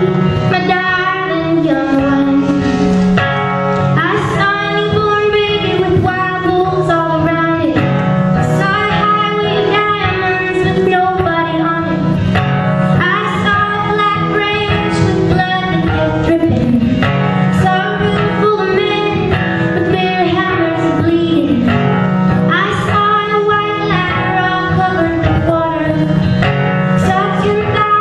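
A woman singing a folk ballad live, accompanied by strummed acoustic guitar.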